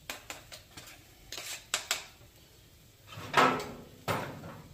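A metal griddle spatula clicking and clanking against a steel griddle top, with a few light knocks early on and a louder clatter about three seconds in.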